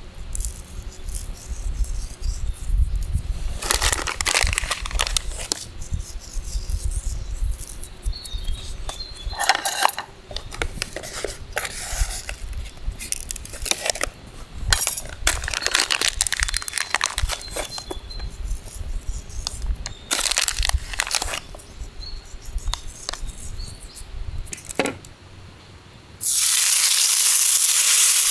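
Irregular rustling, crinkling and metal clinking from food being handled. About two seconds before the end, food goes into a hot frying pan and starts sizzling loudly and steadily.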